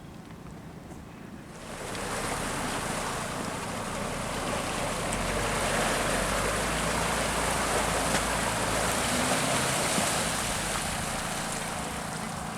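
An off-road Suzuki Jimny's engine running under a loud, steady rushing noise that starts about two seconds in and eases near the end.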